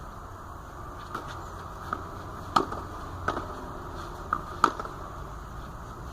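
Steady hiss of rain, with half a dozen sharp taps scattered through it, two of them louder than the rest.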